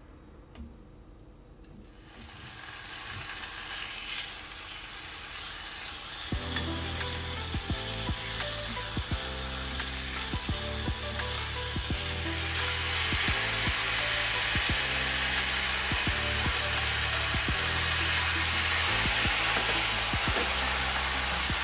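Floured pork loin slices sizzling in sesame oil in a frying pan, starting faint and growing steadily louder as the pan fills with meat. Background music comes in about six seconds in.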